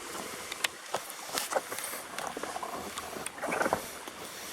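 Footsteps on rocky ground: a few irregular scuffs and knocks, with a small cluster of them near the end, over the steady hiss of a small waterfall with a light flow.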